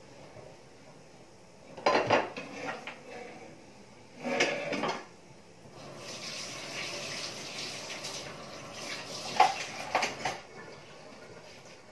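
Dishes and cutlery clattering in three bursts: about two seconds in, around four and a half seconds, and near ten seconds. A steady hiss fills the stretch between the last two.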